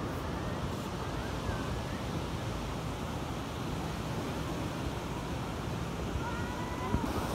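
Steady wash of sea surf, with wind buffeting the microphone and faint distant voices now and then.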